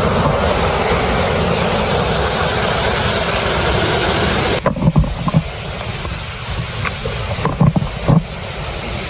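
Steady rush of falling water from a waterfall. It drops suddenly to a quieter rush about halfway through, with scattered knocks and bumps.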